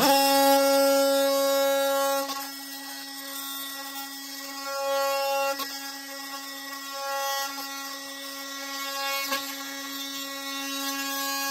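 Oscillating multi-tool buzzing at a steady pitch as its flat blade, held flush to the floor, cuts through the base of a wooden trim post. It is loudest in the first two seconds, then eases and swells as the blade bites into the wood.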